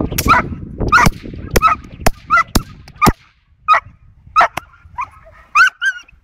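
Young Belgian Malinois puppy barking in repeated high-pitched barks, about one every half second to second, while held back on a harness and agitated toward a tug rag. A few sharp cracks fall between the barks in the first half.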